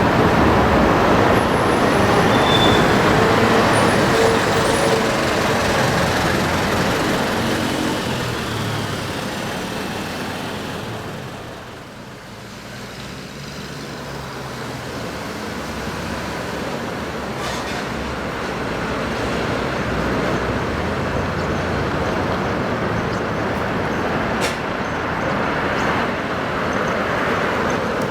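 Road traffic: motor vehicles passing on a street, loud at first, fading to a lull about twelve seconds in, then building up again as more vehicles come by.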